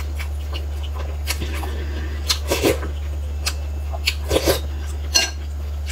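Close-miked eating sounds: spoonfuls of soup sipped and food chewed, with a handful of short wet mouth noises, over a steady low hum.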